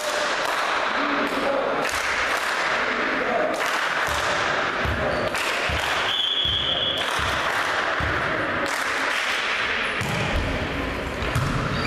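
Indoor volleyball gym sound: a ball bouncing and thudding on the wooden floor and players' voices ringing round the reverberant hall. A referee's whistle sounds once for about a second, about six seconds in.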